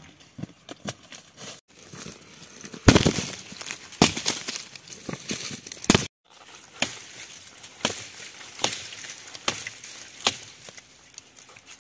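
Footsteps through dry leaf litter and brush, with irregular sharp cracks and snaps of dry twigs and branches.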